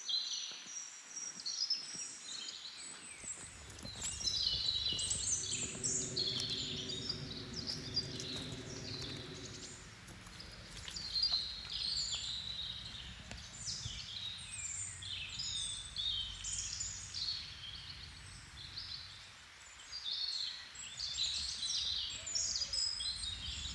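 Woodland birds singing and chirping, many short high calls and trills overlapping throughout, over a low outdoor rumble. A faint low hum runs underneath for a few seconds near the middle.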